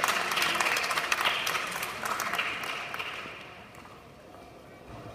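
Audience applauding, the clapping thinning out and dying away about three seconds in.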